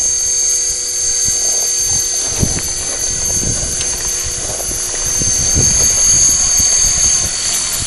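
Electric RC helicopter with an ARC 3700 brushless motor flying low, a steady high-pitched motor and rotor whine over a low rushing noise; the whine stops near the end.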